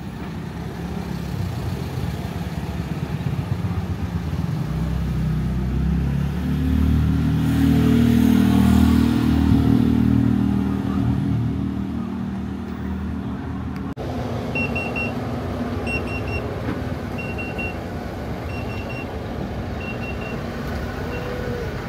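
A motor vehicle's engine on the street close by, growing louder to a peak about eight seconds in and then fading. In the second half, a short high electronic beep repeats about once every 1.3 seconds over the street noise.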